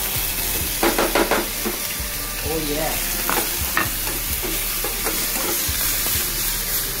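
Chopped tomatoes, onions and beans sizzling in hot oil in a frying pan. A spatula stirs them, scraping and knocking against the pan now and then.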